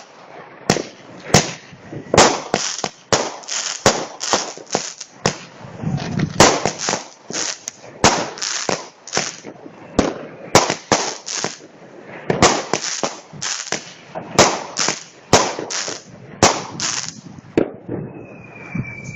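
Firework battery (cake) firing shot after shot: a long run of sharp bangs, roughly two a second and sometimes in quick clusters, that stops near the end.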